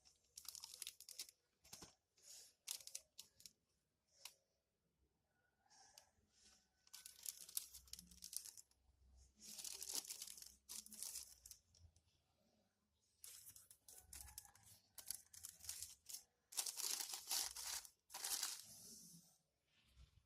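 Faint crinkling and rustling of shoe packaging being handled and pulled open: a few short crackles first, then several longer spells of rustling a second or more long with brief pauses between them.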